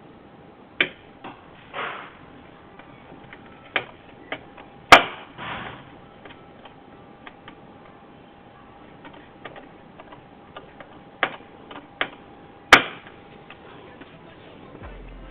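Scattered sharp clicks and knocks of small hardware and tools being handled while assembling a PC, a few of them followed by a short scrape. The loudest knocks come about five seconds in and again near the end.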